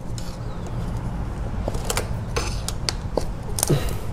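Several sharp plastic clicks and light scrapes: electrical connectors on fuel injectors being pried at their red locking tabs with a small screwdriver and unclipped, over a steady low hum.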